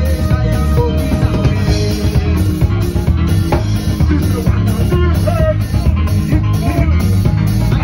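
Live band music played loud through a sound system: a driving bass line and drum kit keep a steady beat, with a man's voice on a microphone over it.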